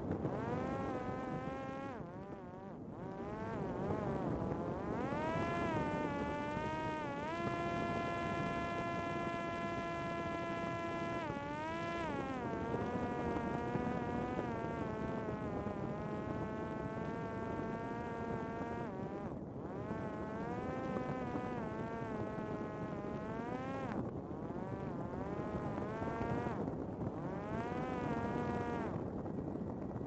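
Parrot Disco fixed-wing drone's electric motor and propeller whining, its pitch rising and falling as the throttle changes and held level for a few seconds in the middle, over a steady rush of wind.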